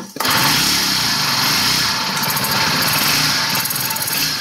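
Honda GX22 four-stroke brush cutter engine starting abruptly and then running steadily and loud. It has a slight bearing noise, which the owner cannot place between the drive shaft's bearings and the inside of the engine.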